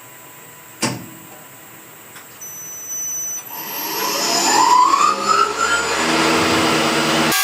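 A single thump, then a motor spinning up: a whine that rises in pitch over a few seconds under a growing rushing noise, settling into a steady run near the end.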